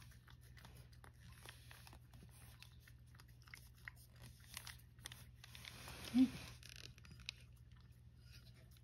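Cat licking a Churu lickable paste treat from a small dish: a quiet, irregular run of small wet tongue clicks. About six seconds in comes one brief low vocal sound.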